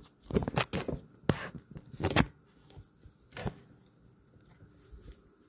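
A plastic water-filter pitcher and its packaging being handled. A quick run of sharp clicks and knocks fills the first two seconds or so, then a few scattered ones follow.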